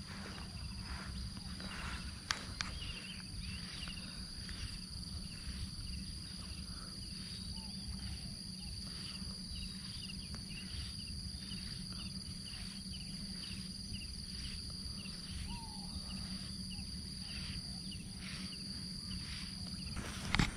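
Insects in the grass and palms keep up a steady high whine that cuts off just before the end. Over it a short chirping call repeats about twice a second, with a steady low hum underneath.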